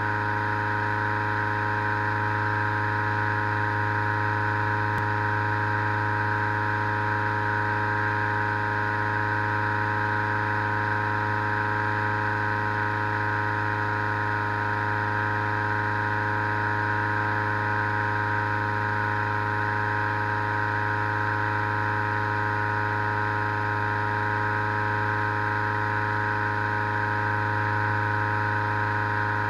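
Petrol-engined balloon inflator fan running at a steady speed, a constant hum with a whirring drone, blowing cold air into a hot-air balloon envelope lying on the ground.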